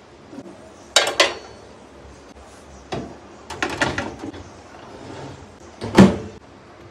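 A series of hard clattering knocks and clinks, the kind made by handling a new microwave oven and its parts. The loudest comes about six seconds in.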